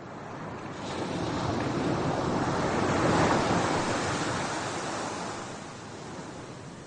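Sea waves surging and washing ashore, swelling to a peak about three seconds in and then easing off.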